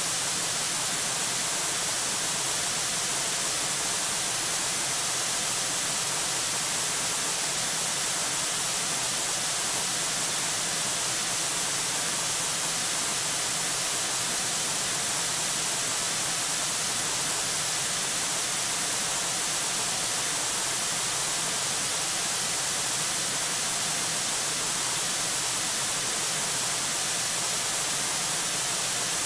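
Steady, even hiss of static from a wildlife camera's microphone, strongest in the high treble, with no calls or other events.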